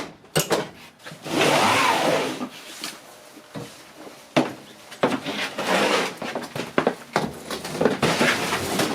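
Hard plastic Packout tool cases scraping and knocking as they are handled and stacked on a rolling dolly, with a long loud scrape about a second in and more scrapes and knocks after.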